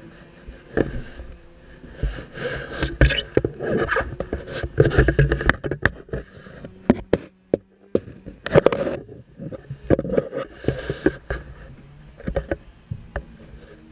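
Irregular knocks, clicks and scrapes from an airsoft rifle and its clamp-on GoPro mount being handled and moved about in a small room, with a brief lull about halfway through.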